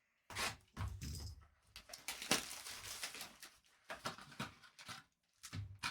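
Trading cards and card-box packaging being handled: dense rustling and scraping with quick sharp clicks of cardboard, in short spells with brief pauses.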